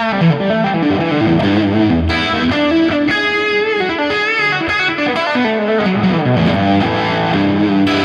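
Electric guitar through a Fractal Audio Axe-Fx III preset modelling a Suhr Badger 18 amp, with a crunchy overdriven tone. It plays a lead line of picked single notes with bends and vibrato, settling onto a held note near the end.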